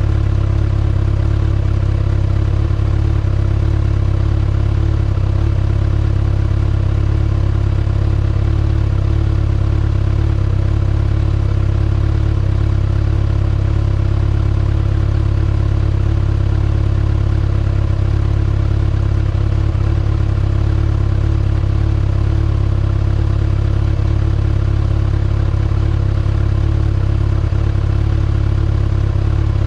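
2019 Kawasaki ZX-6R's 636 cc inline-four idling steadily through its stock exhaust, the pitch and level unchanging.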